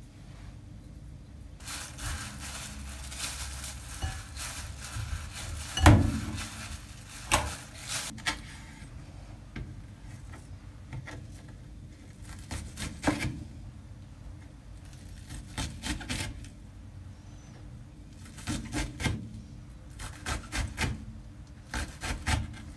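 Kitchen knife work on a wooden cutting board: rubbing and scraping, one loud knock about six seconds in, then scattered taps of the blade on the board, coming faster near the end.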